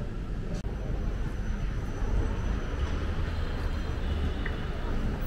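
City street traffic: a steady low rumble of passing vehicles, cutting in about half a second in after a moment of restaurant room noise.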